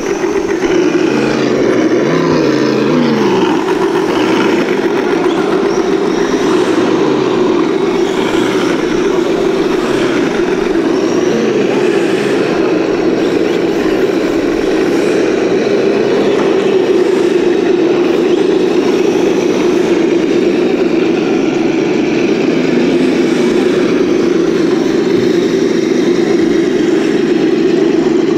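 Electric 1/10-scale RC crawlers' motors and gear drives whining steadily as they crawl over the course, with the pitch dropping once about two to three seconds in as one slows.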